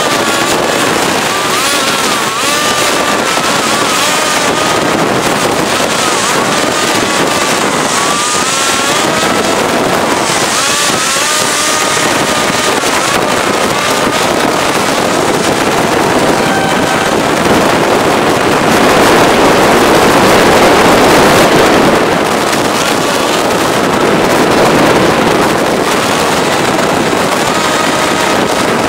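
Suzuki Burgman 125 scooter's single-cylinder engine and belt drive running at road speed, the engine note rising and falling with the throttle, over a loud rushing of wind and road noise that swells about two-thirds of the way in.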